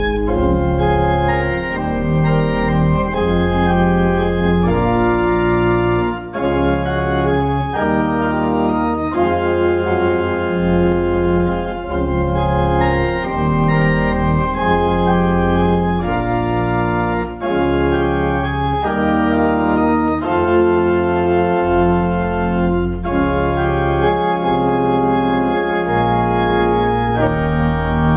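Organ postlude: the organ plays sustained full chords over deep bass notes, the harmony changing every second or two.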